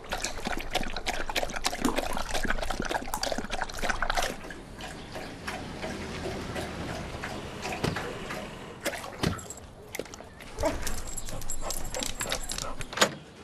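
A dog lapping water from a toilet bowl: rapid wet laps for about four seconds, then slower, scattered laps, with a sharp knock near the end.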